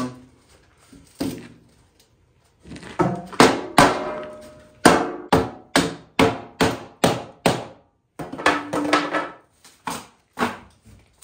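Steel lid being knocked down onto the rim of a sand-filled 55-gallon steel drum, the lid a little warped. There is a run of sharp metallic knocks, about two a second in the middle, some with a short ringing tone after them.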